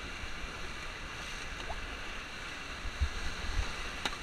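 River rapids rushing and splashing steadily around an inflatable raft, with a few dull low thumps about three seconds in.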